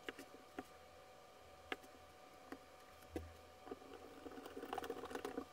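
Small, faint clicks of folding-knife parts being handled and fitted together during reassembly: a few single clicks about a second apart, then a quick run of small clicks and light scraping near the end.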